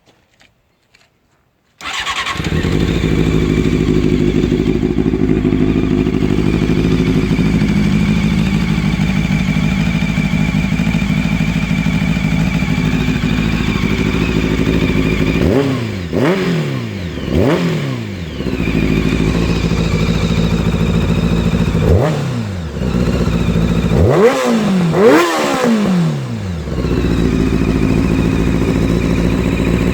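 Honda CBR600F4i's inline-four engine starting about two seconds in and idling steadily, then revved in several short blips that rise and fall in the second half. The bike has an exhaust leak at the header.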